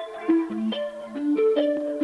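Intro music: a melody of quick plucked notes, one after another.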